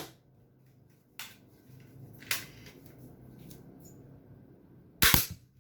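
Nerf Zombie Strike Microshot blaster being handled and reloaded, with two light clicks, then one loud sharp shot near the end.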